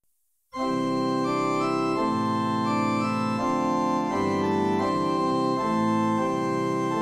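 Instrumental introduction to a hymn: an organ-like keyboard playing slow, sustained chords that change about every second, starting about half a second in.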